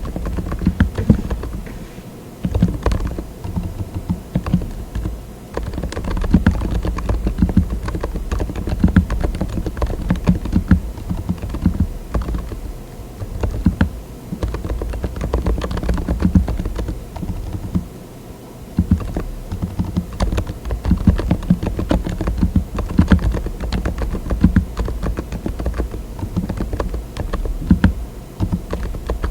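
Fast typing on a mechanical keyboard fitted with TTC Silent "Bluish White" tactile switches: dull, low keystrokes come thick and fast, with a few short pauses.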